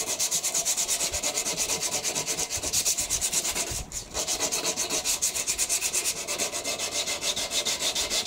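Sandpaper rubbed by hand on the bare steel tubing of a Suzuki LTZ 400 quad frame, in quick, even back-and-forth strokes with a brief pause about four seconds in. This is the final stage of sanding the frame before painting.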